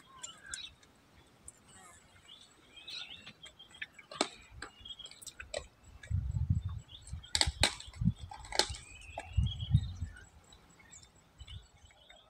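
Birds chirping, with scattered sharp clicks and cracks throughout. A few loud low thumps come in the second half.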